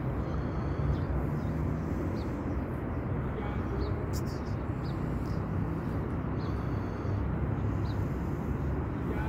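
Steady low outdoor background rumble, with brief faint high chirps of small birds scattered through it.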